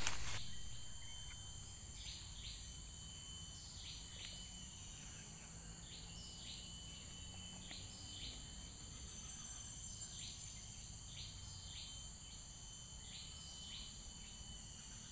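Insects in the trees droning in steady high tones, with short high chirps repeated about once a second.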